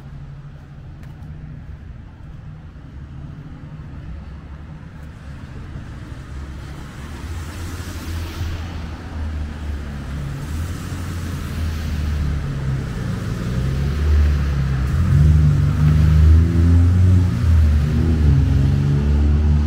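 Road traffic on a wet street: tyres hiss past, and a low rumble of passing cars grows louder over the second half.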